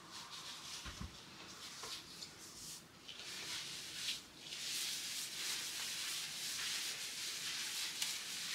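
Gloved hands working hair dye remover through wet hair: a quiet, uneven rustling, a little louder after about three seconds.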